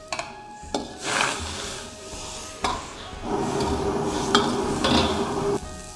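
Diced pork back fat being stirred in a pot of boiling water while it blanches. The utensil knocks against the pot several times, with a steady scraping for about two seconds past the middle.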